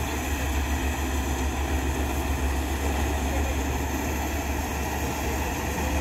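Rice combine harvester running steadily as it cuts paddy, a continuous engine and machinery drone with no change in pace.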